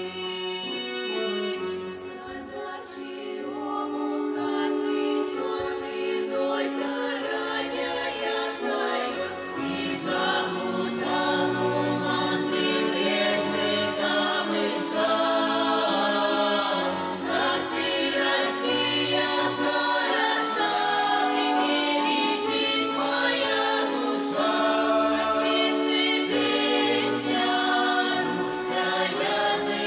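Children's folk ensemble singing a Russian folk song together in chorus, several voices at once.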